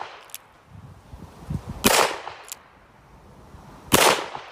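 Single-action revolver firing two sharp shots about two seconds apart, each followed about half a second later by a fainter echo.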